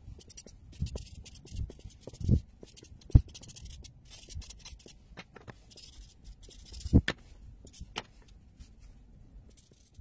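Felt-tip marker scratching across paper in quick, short strokes, with a few sharp knocks, the loudest about three and seven seconds in.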